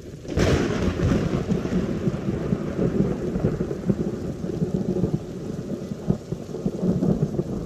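Thunderstorm: a thunderclap hits about half a second in, then thunder keeps rumbling over heavy rain.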